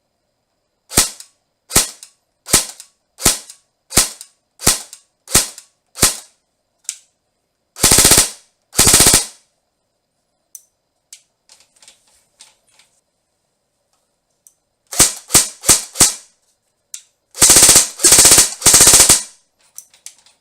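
Tokyo Marui M4 S-System electric airsoft gun firing without a suppressor: eight single shots about 0.7 s apart, then two short full-auto bursts. After a pause come four quicker single shots and three full-auto bursts, the first group with a bare muzzle and the later group with the stock flash hider.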